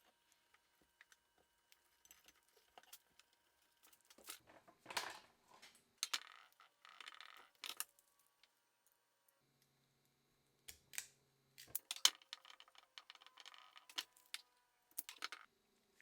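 Light metallic clinking and rattling, as of small metal parts being handled, in two spells of clatter with scattered clicks between them.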